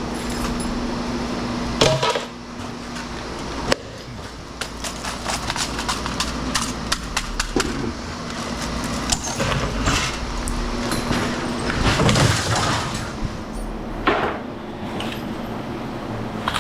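Irregular clinks, knocks and clattering of metal and glass parts being handled as old light fixtures are taken apart for scrap, with a low hum that comes and goes.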